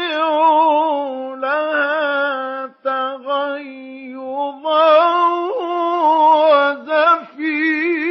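A male Quran reciter chanting in the melodic mujawwad style, unaccompanied and dry with no added echo. He holds long ornamented notes with a quick wavering in pitch, in several phrases with short breaths between them.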